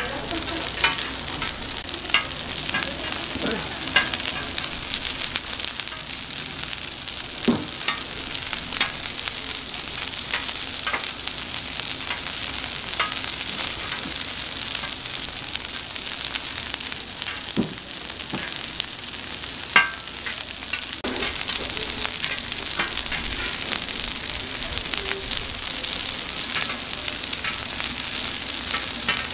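Donggeurangttaeng, small Korean meat-and-vegetable patties, sizzling in oil on a flat griddle in a steady high hiss. A metal spatula clicks and scrapes against the griddle now and then as the patties are turned, loudest once about twenty seconds in.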